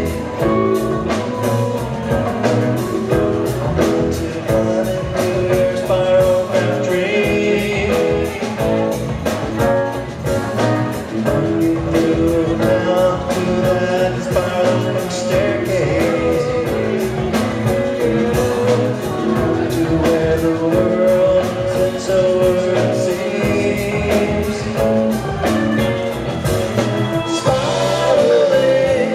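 Live rock band playing: electric guitar, bass and drums keeping a steady beat, recorded from the audience.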